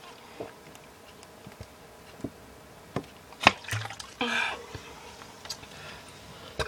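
Cherry limeade soda being sipped and swallowed: a few soft gulps and small clicks, with one short soft sound about four seconds in.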